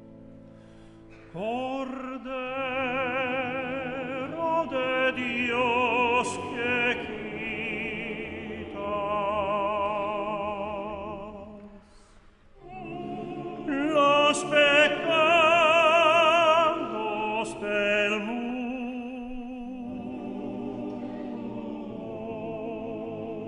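Tenor singing long held notes with wide operatic vibrato over a low sustained accompaniment. The voice swoops in about a second in, breaks off briefly around halfway, and comes back at its loudest.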